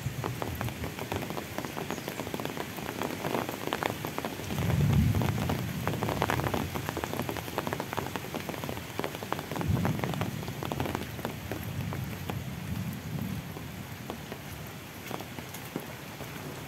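Steady rain falling on a paved road, puddles and foliage, with many close drop hits. A low rumble swells about five seconds in and again near ten seconds.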